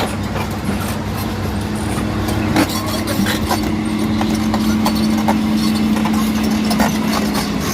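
Excavator's diesel engine running steadily, with scattered short knocks and clicks over it.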